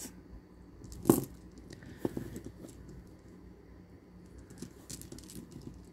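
Plastic kandi beads clicking softly against each other as they are handled and threaded onto elastic string, with one sharper click about a second in.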